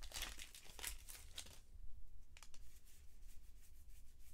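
Foil wrapper of a trading-card pack being torn open and crinkling for about the first second and a half, then a few faint clicks as the cards are handled.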